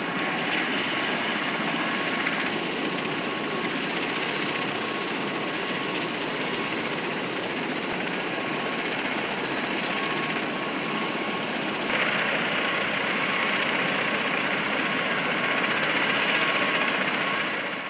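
MV-22 Osprey tiltrotor's turboshaft engines running on the ground: a steady rushing drone with a steady high whine, growing louder and brighter about twelve seconds in.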